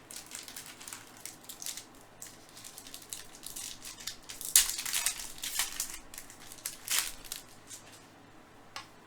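Trading cards and a foil pack wrapper being handled: quick rustling, flicking and crinkling, loudest about halfway through and again about two seconds later, then dying down.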